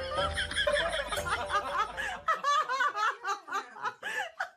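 People laughing in quick, high-pitched bursts. A low hum underneath stops about two seconds in.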